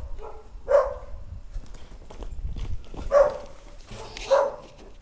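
A dog barking: three loud single barks, the first about a second in and the next two close together near the end, with a fainter one early on.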